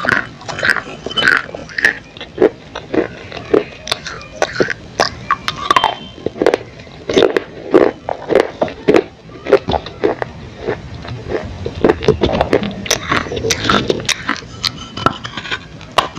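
A person chewing and crunching clay, heard through a clip-on microphone pressed against the throat: a dense run of sharp, irregular crunches, several a second.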